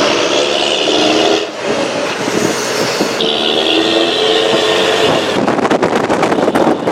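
Bus running along a road, a steady multi-toned engine and gear whine rising over the rumble and road noise for the first second and a half and again from about two to five seconds in.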